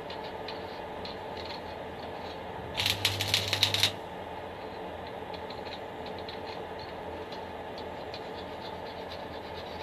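Arc welder striking an arc on a dumbbell weight: about three seconds in, roughly a second of sharp crackling and sizzling over a steady hum, then it stops. The arc does not hold, and the dumbbell weight will not weld.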